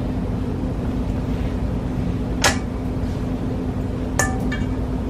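Two sharp knocks of hard kitchenware, about two seconds apart, the second with a short ring, over a steady low hum.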